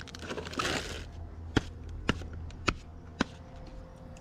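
Cardboard and scrap rustling as gloved hands move debris in a dumpster, then four sharp knocks about half a second apart.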